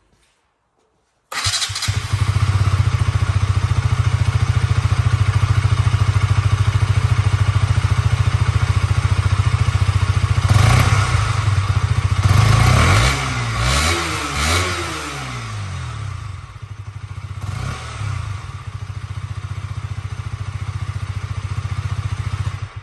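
KTM Duke 125's single-cylinder four-stroke engine, heard through its exhaust. It starts suddenly and idles steadily, is revved up and down several times midway, blips once more, then settles back to idle before cutting off near the end.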